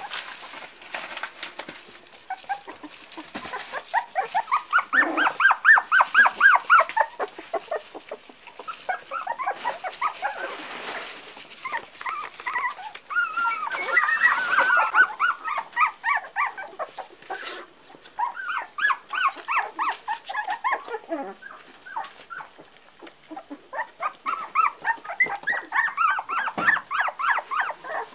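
Four-week-old Parson Russell Terrier puppies whimpering and yipping: runs of short, high-pitched squeaky calls, several a second, coming in bursts with brief lulls between.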